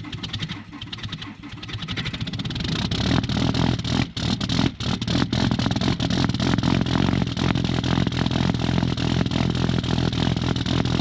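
Diesel truck engine being cold-started at about −29 °C without a block heater. The starter cranks it with fast, even strokes, and about three seconds in the engine catches. It falters briefly twice, then keeps running loud and rough. It barely started, a sign of weak batteries struggling in the cold.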